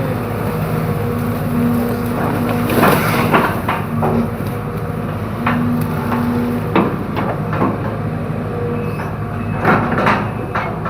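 Excavator's diesel engine running under load, with a scatter of sharp cracks and snaps as bamboo stems are crushed and broken, the loudest about three seconds in and again near the end.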